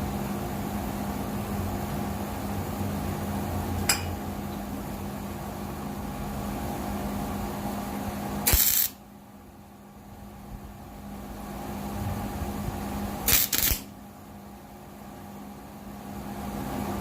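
A steady machine hum stops abruptly after a short loud burst of noise about eight and a half seconds in. Two more short loud bursts follow a few seconds apart, with a sharp tick about four seconds in.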